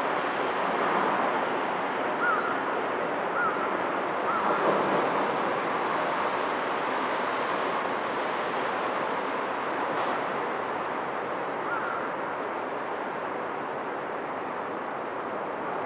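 Steady waterfront ambience of wind and waves, with a few short high chirps about two, three, four and twelve seconds in.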